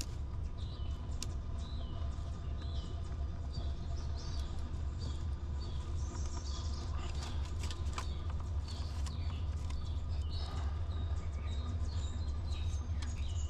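A bird calling a short falling note over and over, a little more than once a second, with more varied bird calls joining in the second half. A steady low rumble runs underneath.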